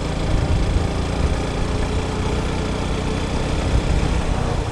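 Motorcycle engine running steadily while riding, with a constant rush of wind and road noise.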